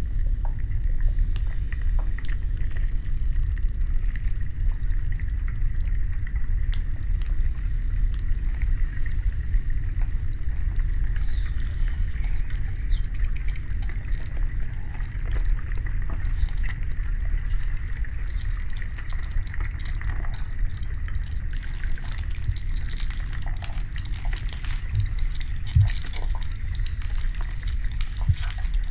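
Glacier ice heard in a glacioacoustic recording: a steady deep rumble under scattered crackles and pops, with a faint steady high tone. The crackling grows denser and sharper in the last several seconds.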